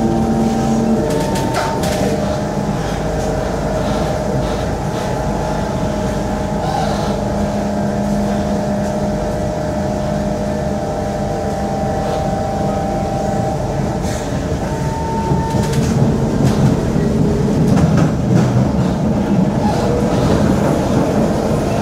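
Interior of a Kawasaki Heavy Industries C151 metro train pulling away from a station and running along the elevated track: steady rumbling wheel and track noise with electrical whining tones from the traction equipment that shift pitch in steps. The noise grows a little louder late on.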